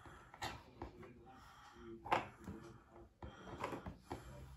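Plastic Play-Doh knives cutting dough, giving faint scattered taps and scrapes against a wooden table, with one sharper knock about two seconds in.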